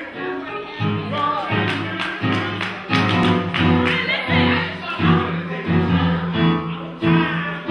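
Gospel choir music: voices singing over instrumental accompaniment, with a pulsing bass line coming in about a second in.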